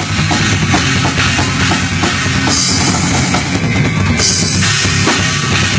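Rock band playing in a rehearsal room, the drum kit to the fore with a steady beat under bass and guitar. Cymbal crashes come in about halfway through and ring on toward the end.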